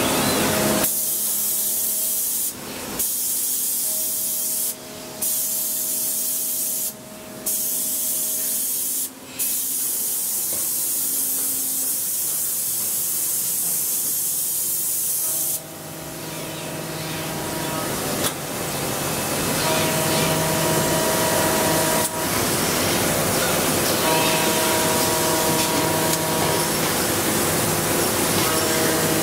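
Machinery of a robot-tended CNC milling cell: a steady high hiss like a spray that cuts out briefly four times in the first ten seconds. About halfway through, a louder, fuller machine noise takes over, with a faint steady whine.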